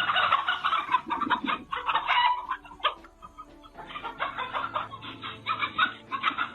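Chickens clucking: many short, quick calls repeated in runs, with a brief lull partway through.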